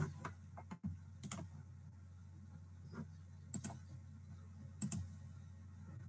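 A handful of sharp, irregularly spaced computer mouse clicks, some in quick pairs, as slideshow annotations are made and a right-click menu is opened, over a faint steady low hum.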